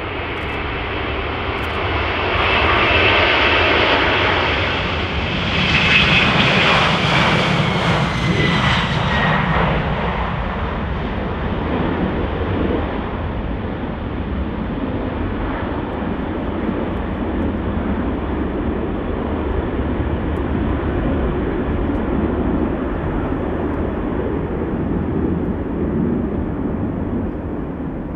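Boeing 747's four jet engines at takeoff power as the aircraft runs down the runway and climbs away: a loud rush of engine noise with a high whine that falls in pitch as it passes, about six to ten seconds in, then a steady deep rumble.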